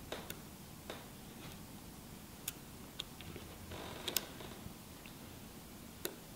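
Small sharp clicks and taps, about eight scattered over a few seconds, as the new screen's flex-cable connectors are pressed down by hand onto an iPhone 6 logic board. There is a brief rustle about four seconds in.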